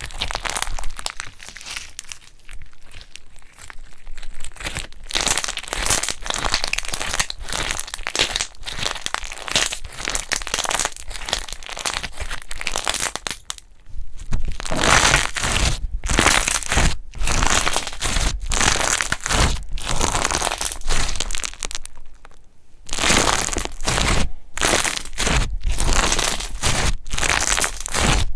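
Hands squeezing and pressing slime, making a dense run of crackling, crinkling sounds. It breaks off briefly about halfway through and again a little later.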